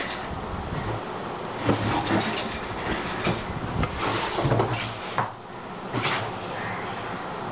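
Irregular knocks, clicks and scrapes from a screwdriver and hands working on the screw terminals of power resistors on a 3D-printer heated bed plate, over a steady background hiss.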